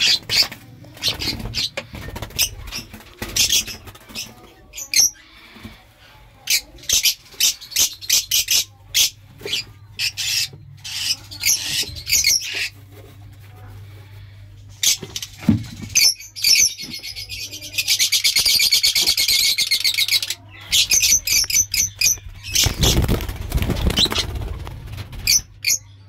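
Lovebird chicks chirping over and over with short, sharp high calls, with one sustained buzzy, rattling call lasting about two seconds partway through. Near the end comes a brief burst of rustling in the nest straw.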